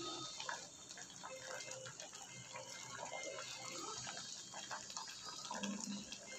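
Spinach and sweet-corn soup boiling in an aluminium pot, faint bubbling with small crackles, as a plastic ladle stirs through the leaves and water.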